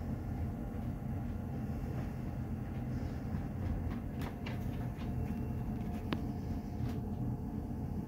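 2006 American Standard Freedom90 gas furnace running with its burners lit and draft inducer going, before the indoor blower has started: a steady low rumble. A few light clicks come between about four and seven seconds in.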